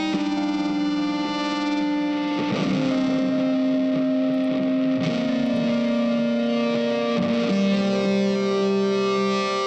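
Background music: long, sustained distorted electric guitar notes, each shifting to a new pitch every two to three seconds.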